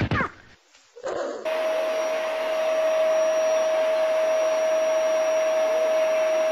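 A household appliance motor running steadily: an even whooshing hiss with a constant mid-pitched whine. It starts about a second and a half in and cuts off suddenly near the end.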